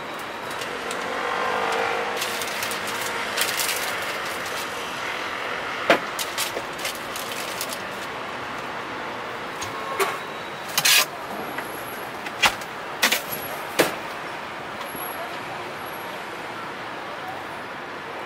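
Street traffic ambience: passing vehicles with a steady background hum, one swelling past about two seconds in. Several sharp short clicks and knocks come between about six and fourteen seconds in.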